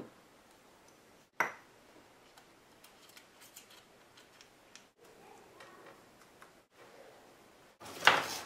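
Hard plastic parts of an Axial XR-10 rock crawler axle being handled and fitted together on a tabletop: light clicks and taps, a sharp knock about a second and a half in, and a louder clatter near the end.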